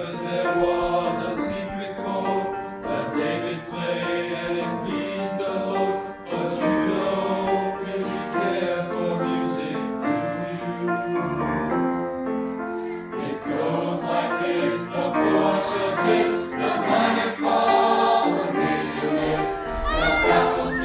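Choir singing in several parts, with long held chords that change from note to note.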